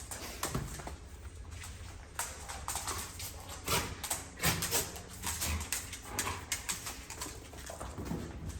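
A pet monkey scampering and moving about: irregular taps, knocks and rustles, a few louder knocks among them.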